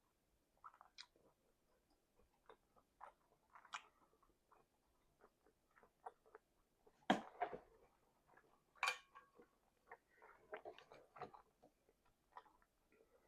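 A person chewing food close to the microphone: scattered wet mouth clicks and smacks, with two louder smacks about seven and nine seconds in.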